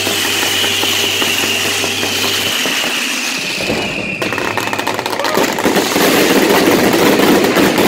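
Fireworks burning: a steady hiss of spark fountains, with a high whistle slowly falling in pitch over the first five seconds. A dense crackle of sparks takes over from about five seconds in.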